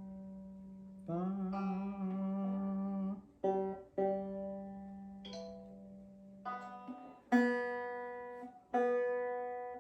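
Ortega Falcon banjo strings plucked one at a time during tuning, each note ringing and fading away. About a second in, one ringing note slides slightly up in pitch.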